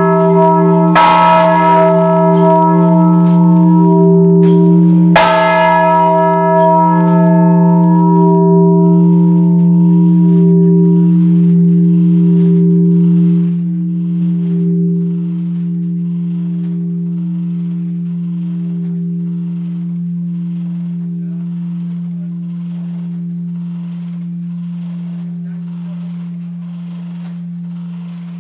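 Large church bell, cast in 1926, swinging: its clapper strikes it twice, about a second in and about five seconds in, and then stops striking. Its deep hum and upper tones then die away slowly with a faint regular pulsing while the bell swings on, as the ringing winds down.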